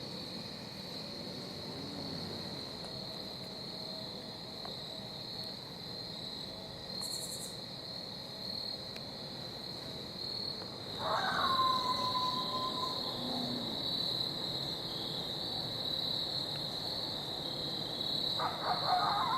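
Steady high-pitched chorus of crickets. Twice, about eleven seconds in and again near the end, a louder call cuts in, a short rough onset dropping into a held whistle-like tone.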